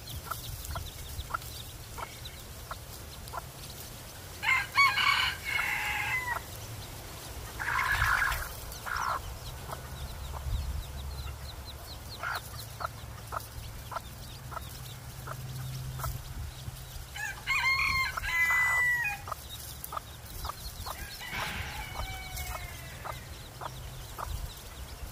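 A rooster crowing twice, about four seconds in and again near eighteen seconds, over many short clucks and peeps from a hen and her chicks.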